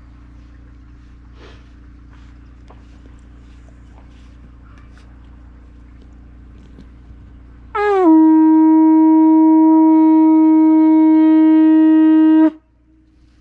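Conch shell trumpet (pū) blown in one long, loud held note about eight seconds in, scooping up into pitch at the start and cutting off sharply after about four and a half seconds. Before it there is only a faint, steady outdoor background.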